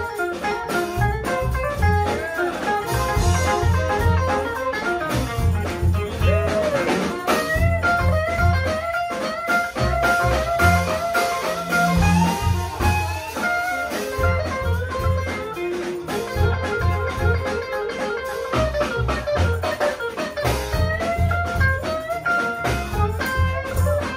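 Live blues-jazz band playing an instrumental passage: a melodic lead line with bent notes over walking upright bass and drums.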